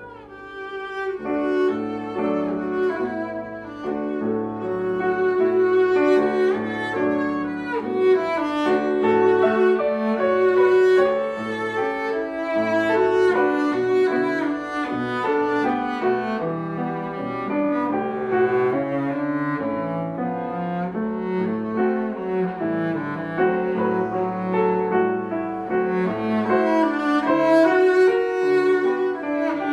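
Cello played with the bow, accompanied by a grand piano, in a classical duo piece; the music swells from soft to loud over the first few seconds.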